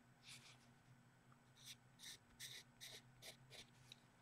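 Derwent pastel pencil scratching across colouring-book paper in a series of short, irregular strokes, faint.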